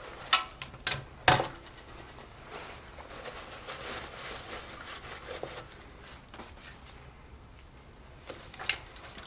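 Engine parts being handled during a teardown: a few sharp knocks in the first second or so, then a few seconds of rubbing and scraping, and two more clicks near the end.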